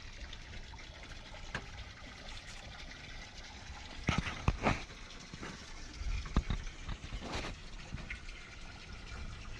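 Water splashing and trickling, with a few sharp knocks and clatters about halfway through.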